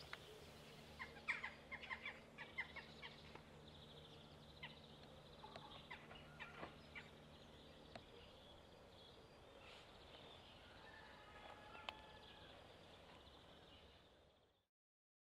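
Faint outdoor ambience with birds chirping and calling in short clusters, over a low steady hum that stops about eight seconds in; everything fades out near the end.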